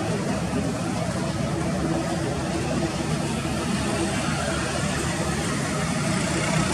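Boeing 787 jet engines running at low thrust as the airliner taxis slowly onto a wet runway: a steady noise with a faint low hum.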